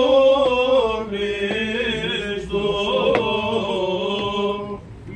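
Greek Orthodox Byzantine chant: a voice draws out a melismatic melody in long, ornamented notes over a steady lower held note, with a short break near the end.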